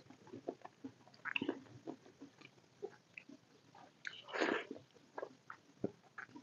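Close-miked eating sounds of curry and rice taken by hand: irregular wet chewing and lip smacks. The loudest burst comes about four seconds in, as a fresh mouthful goes in.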